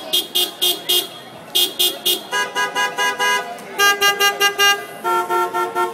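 Car horns played as musical instruments: groups of quick, short toots, about five a second, with brief pauses between groups. Horns of different pitch take turns, making a tune.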